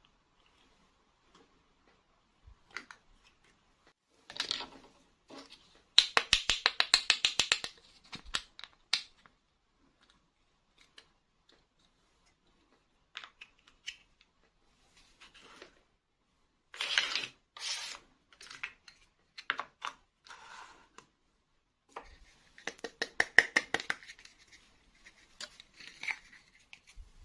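Hands handling a small plastic toy and its packaging: scattered clicks and scrapes with a fast run of sharp ticking about six seconds in, and more bursts of clicking later on.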